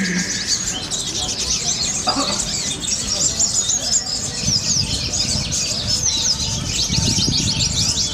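Several songbirds singing at once in rapid, high chirps and trills, over a low murmur of crowd chatter.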